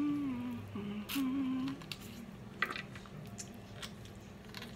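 A woman's closed-mouth 'mmm' hums of enjoyment while eating: three short notes in the first two seconds, the first one falling, then a few sharp mouth clicks and smacks from chewing.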